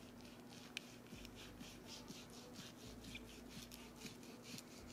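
Long carving knife sawing back and forth through the crisp skin and breast meat of a roast chicken: faint, quick rasping strokes, about four or five a second, with one sharp click about a second in.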